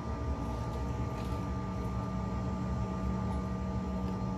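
Cabin noise aboard a Bombardier CRJ1000 jet taxiing on the ground: the rear-mounted turbofan engines running at idle, a low rumble under steady whining tones.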